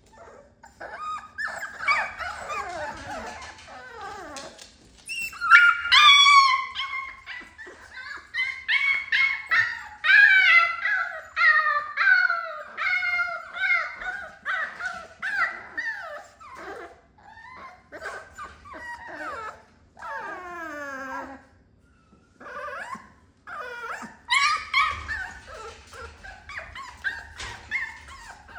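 American Pit Bull Terrier puppy whining and howling in a long run of short, high cries, many of them falling in pitch.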